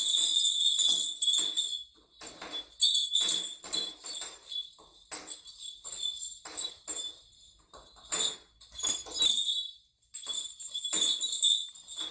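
A string of small jingle bells hanging from a sliding-door handle, pawed at again and again by a golden retriever puppy: irregular bursts of jingling, with a short pause about ten seconds in.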